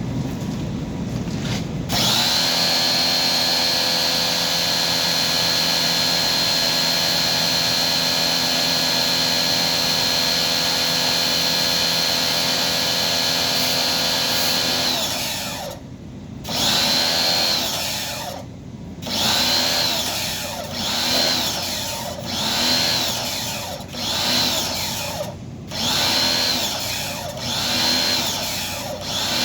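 A small electric motor, like a handheld power tool, starts about two seconds in and whines steadily for about thirteen seconds. It is then run in short bursts, speeding up and slowing down about once a second, with a few brief stops.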